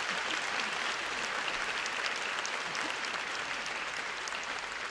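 A large audience applauding steadily: a dense, even clapping.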